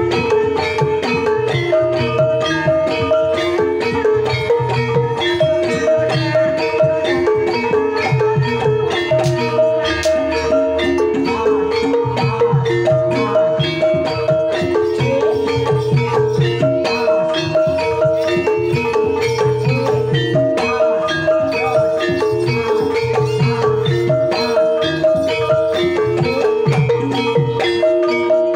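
Javanese gamelan ensemble playing a Banyumasan tayub piece: bronze bonang kettle gongs struck with mallets in a repeating melodic pattern, over a kendang drum and recurring low beats.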